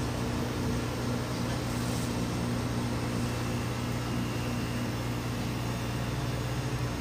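Window-type air conditioner running with its newly replaced compressor, a steady even hum, while the system is being charged with Freon.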